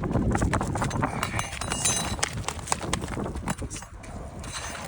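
Irregular clicking, knocking and scraping of hand tools working under roof shingles, with wind rumbling on the microphone.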